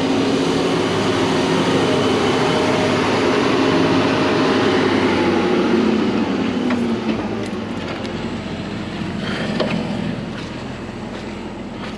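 A heavy vehicle engine running loudly, its pitch sliding down and the sound fading about seven seconds in, followed by a few light clanks.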